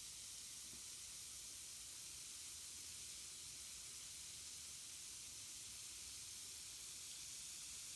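Lush 'Ectoplasm' jelly bath bomb fizzing in bath water: a faint, steady high hiss.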